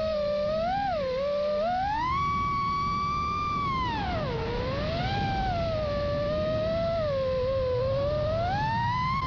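Brushless motors of an FPV quadcopter whining in flight, the pitch swooping up and down with the throttle, over a rough rushing noise of air.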